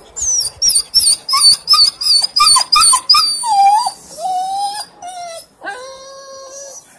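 A dog crying: a quick run of about ten short, high-pitched yelps, about three a second, then several longer, lower whines that waver in pitch.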